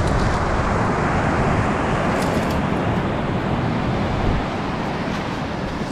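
Ocean surf washing up the beach: a steady rushing that swells in the first couple of seconds and then slowly fades.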